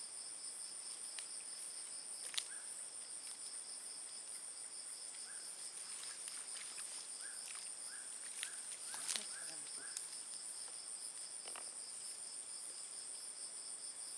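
Night insects trilling steadily in two high, finely pulsing tones. A few sharp clicks or knocks come about two seconds in and again around nine seconds, with a short run of faint chirps in the middle.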